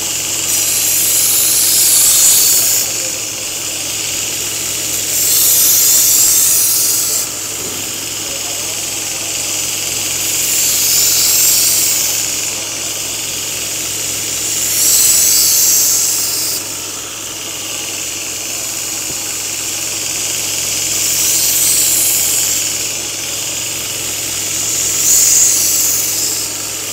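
A 2x42 belt grinder running steadily on a 120-grit ceramic belt, with a knife edge pressed to the belt six times. Each pass gives a hissing grind of about two seconds over the motor's hum: the edges being cut in.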